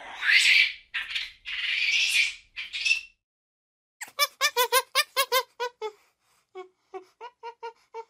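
Monkey screeching in harsh shrieks for about three seconds. After a short pause comes a fast series of short pitched calls, about five a second, that slows and fades toward the end.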